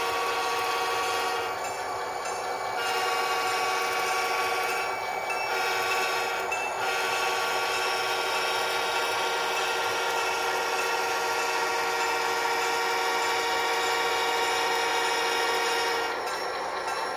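Model railroad locomotive running on the layout, a steady mechanical whirr with several fixed tones that eases slightly near the end.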